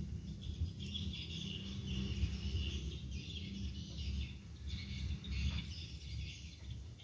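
Birds chirping in the surrounding garden over a steady low rumble, with the chirping fading near the end.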